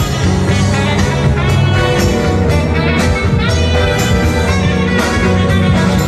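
Instrumental passage of a pop song with a steady beat and a prominent bass line, with no voice singing over it.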